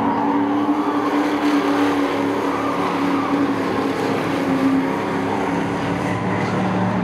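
A pack of short-track race trucks running at racing speed around an oval, their engines blending into one steady drone with several pitches shifting against each other.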